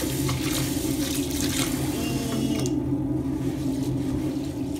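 Kitchen tap water pouring into a bowl of mung beans being rinsed in a stainless-steel sink; the stream stops about two and a half seconds in. A steady low hum runs underneath.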